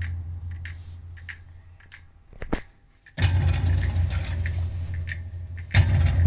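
Music played through a Steg car audio system: steady, heavy bass under crisp, regularly spaced percussion hits. The music nearly drops out for about a second midway, then comes back in full.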